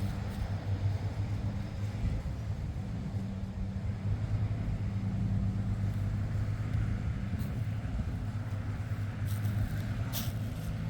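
Tractor engine running at a steady speed, a low even hum, with a few brief clicks near the end.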